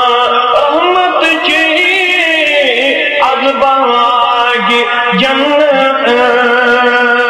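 A man chanting a Kashmiri devotional verse in a wavering, melismatic style over a steady sustained drone. The voice line moves most in the first half, while the drone holds throughout.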